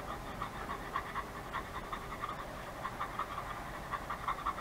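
Quick, steady panting, about three or four short breaths a second.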